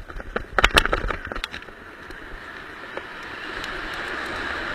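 A few sharp knocks in the first second, then a hiss that grows steadily louder, typical of drift trike wheels sliding on wet asphalt as the trikes come closer.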